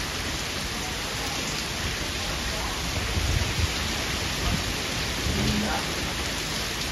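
Heavy cyclone rain pouring down onto standing floodwater, a steady dense hiss and splatter of drops hitting the water, with a low rumble swelling now and then.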